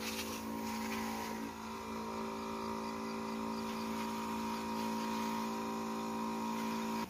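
Electric pump motor of a battery-powered knapsack sprayer running with a steady, even hum, with the hiss of the spray from the lance. It cuts off suddenly at the end.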